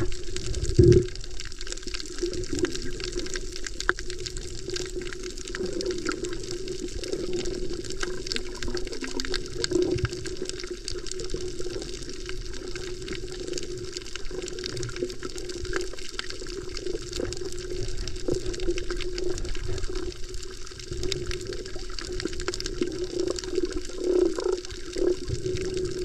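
Underwater sound picked up by a camera held beneath the surface: a steady watery hiss with a constant low hum and many faint crackling ticks. There is a low thump about a second in.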